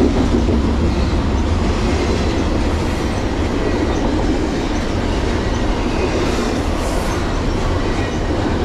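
Double-stack intermodal freight train's well cars rolling past at close range: steel wheels running on the rails with a steady, loud noise.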